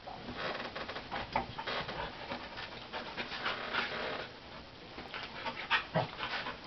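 Two dogs play-wrestling, with quick panting in short bursts that ease off briefly about two-thirds of the way through, then pick up again.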